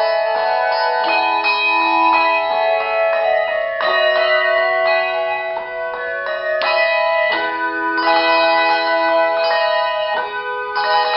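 Handbells playing a tune: several bells struck together in chords that ring on, with a new chord every second or so.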